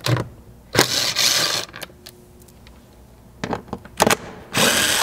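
Cordless driver with a 7 mm socket running to back out the door-panel screws: two short runs of about a second, one about a second in and one near the end, with a few light clicks between.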